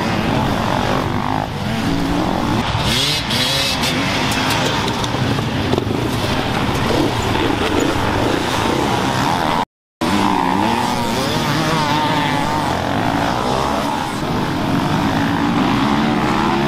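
A pack of enduro dirt bikes revving and accelerating past, many engines overlapping with pitches rising and falling as riders open and close the throttle. The sound cuts out for a moment just before ten seconds in.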